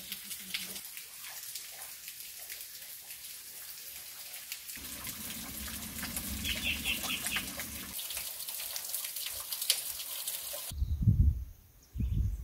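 Thin waterfall trickling and dripping into a shallow rock pool, a steady fine splashing, with a quick run of about five bird notes about six seconds in. Near the end it cuts abruptly to low rumbling gusts of wind buffeting the microphone.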